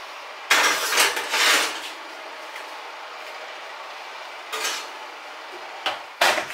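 Baking dishes scraping and clattering: a long scrape about half a second in, a shorter one midway, and a sharp knock near the end, over a steady hiss.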